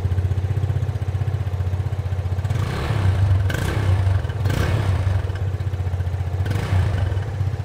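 Yamaha FZS 25's 249 cc air-cooled single-cylinder four-stroke engine idling through its stock exhaust, revved briefly a few times from about two and a half seconds in.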